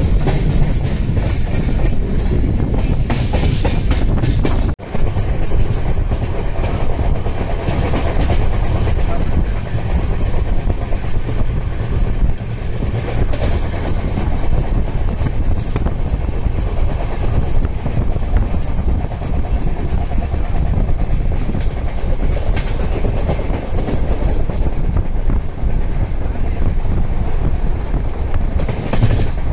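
Sleeper coach of the Dadar–Ajmer Superfast Express running at speed: a steady rumble of wheels on the rails, with a brief drop-out about five seconds in.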